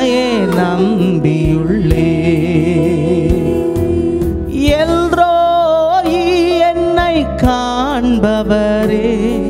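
Tamil Christian worship song: a voice singing long held notes with vibrato over steady instrumental accompaniment.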